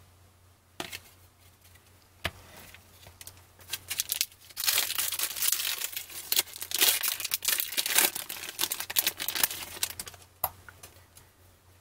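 A few light clicks, then from about four seconds in a trading-card pack wrapper crinkling and tearing loudly as it is ripped open by hand.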